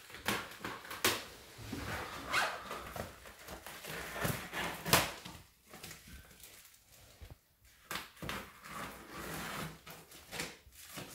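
Scissors cutting through a plastic mailing bag wrapped around a parcel, with the plastic crinkling and rustling as it is handled, in irregular spurts with a few sharper crackles in the first half.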